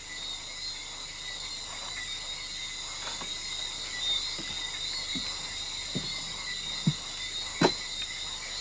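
Steady chorus of insects, buzzing at several high pitches, with a handful of short sharp sounds between about four and eight seconds in.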